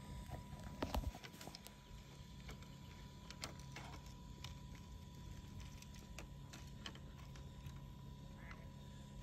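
Light clicks and knocks as a model ship's lifeboat and davit are handled by hand, the strongest knock about a second in, over a steady low hum.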